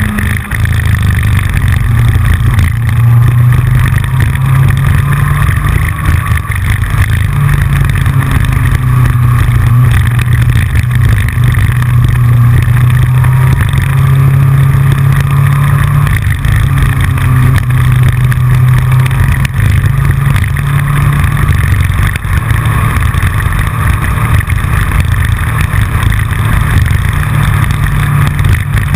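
Yamaha FJR1300's inline-four engine running steadily while riding, overlaid with constant clicking and rattling from the camera mount shaking on the front fairing.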